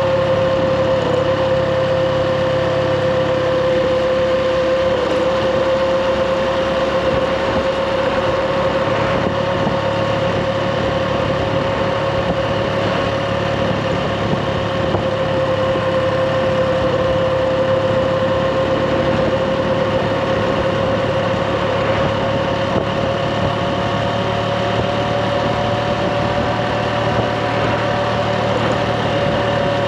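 Motorbike engine running steadily at an even pitch, which rises slightly near the end.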